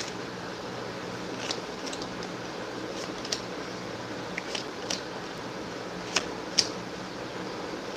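Tarot cards being handled and laid out on a table: a handful of faint, short clicks and taps over a steady low room hum.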